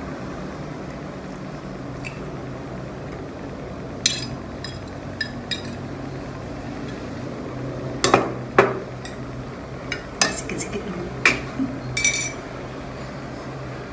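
Metal fork clinking and scraping against a ceramic plate while eating, in scattered light strikes, with a denser run of clinks in the second half. A steady low hum runs underneath.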